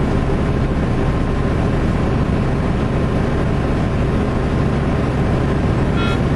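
Steady engine drone and road noise inside a truck's cab while driving on a highway, with a short high beep near the end.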